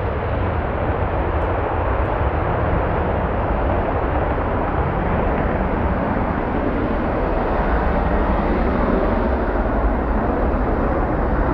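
Panavia Tornado's twin RB199 turbofan jet engines running loud and steady, a deep, even noise with no let-up.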